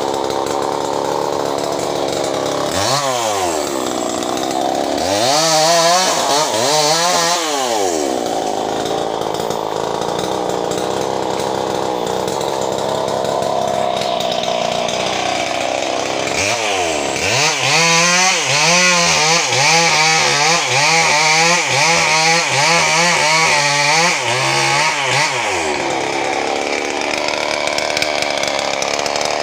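Stihl 070 two-stroke chainsaw idling. A few seconds in it is revved up and down two or three times, and later it is revved in a quick run of throttle blips for about eight seconds before dropping back to idle.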